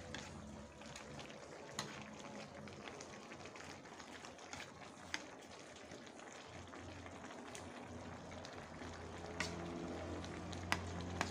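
Vegetable broth bubbling at a simmer in a metal wok on a gas burner, with a metal ladle stirring and clinking sharply against the wok a few times, more often near the end. A low hum comes in about halfway.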